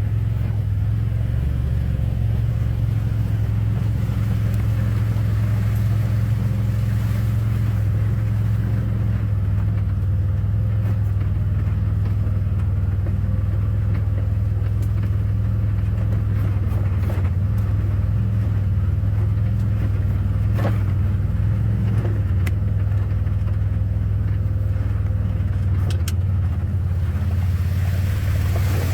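Vehicle engine and drivetrain running steadily at low speed with a constant low drone, with a few brief knocks or rattles about two-thirds of the way through.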